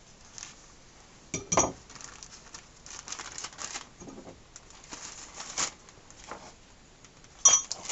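Plastic bag crinkling and rustling as a removed gasket is slipped into it, with a sharp click about a second and a half in and another near the end.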